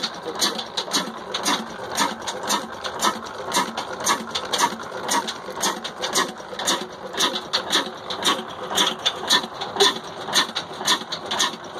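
Old Ruston Hornsby-type stationary diesel engine running, with a steady, even, rhythmic clicking clatter of its valve gear.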